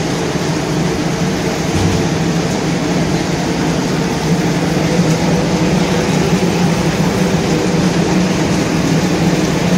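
Popcorn production line machinery running: a steady hum with a low drone, from the conveyor and processing machines at work.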